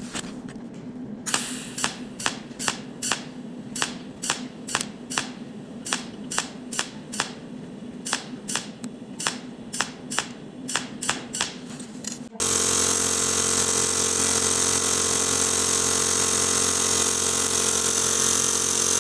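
A machine hums while sharp clicks repeat about two or three times a second. About twelve seconds in, it cuts to a louder, steady machine noise with a held hum.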